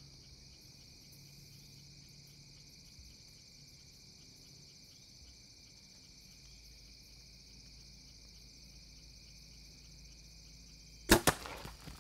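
A bow shot at a deer: about eleven seconds in, one sudden loud crack of the string and arrow, followed by a few quick snaps and rustles. Before it there is only a faint, steady high drone.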